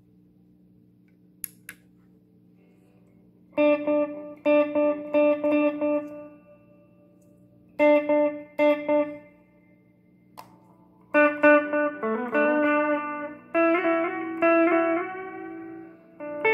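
Electric guitar played through a Valeton Dapper Amp Mini pedal into a Fender Champion 20 amp, with the pedal's effects section switched on. After a few quiet seconds of faint amp hum and two small clicks, it plays short groups of struck chords and notes separated by pauses, then a busier run of chords near the end.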